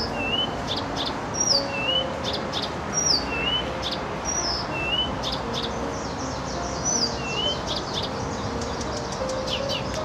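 Acrocephalus (reed) warbler singing. It repeats a phrase about every second and a half: a high down-slurred whistle, a lower rising note and a few dry clicking notes. Near the end it moves into a faster run of clicky notes.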